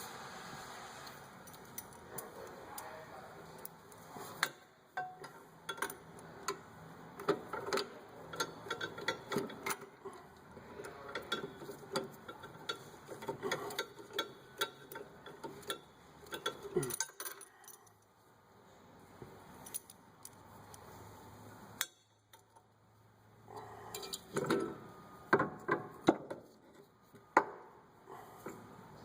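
Irregular light metallic clicks, clinks and knocks of tools and brake parts being handled during rear brake pad work, with two short quieter pauses.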